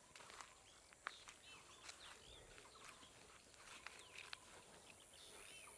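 Faint chirps and calls of several small birds, short rising and falling notes scattered throughout, with a few light clicks.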